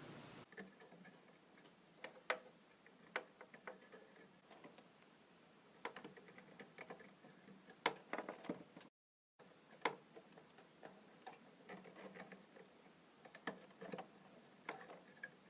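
Faint, irregular plastic clicks and taps of ribbon-cable connectors being handled and pressed onto the pin headers of a display controller's hub card.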